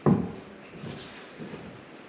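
Heavy 3-inch-thick white oak stair tread set down on a steel stringer: one dull wooden thud right at the start, then quieter shuffling as it is nudged into place.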